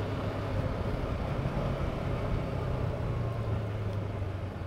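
Honda CB500X's parallel-twin engine running steadily while riding, a low even hum with road and wind noise over it.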